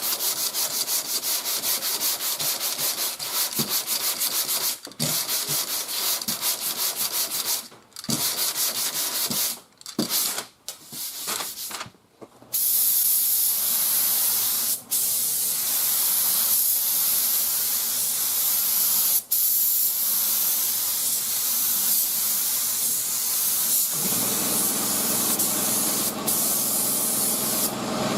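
Hand sanding of primer and glazing putty in quick, even strokes, broken by several short pauses; about halfway through it gives way to the steady hiss of a spray gun laying on primer surfacer, with a lower steady hum joining near the end.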